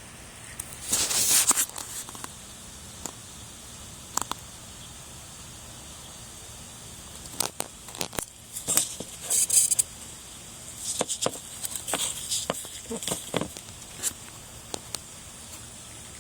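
Scattered clicks, light knocks and crinkling, scraping rustles in short clusters, the sound of parts and tools being handled by hand. The clusters come about a second in and again in the second half.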